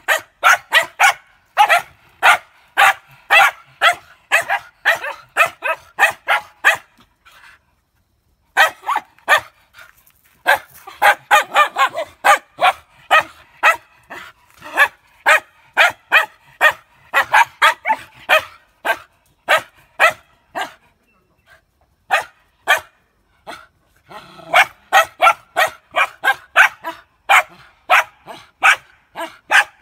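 Small white spitz-type dogs barking in quick runs of short, sharp yaps, about three a second, with a brief pause about eight seconds in and sparser barks past the twenty-second mark.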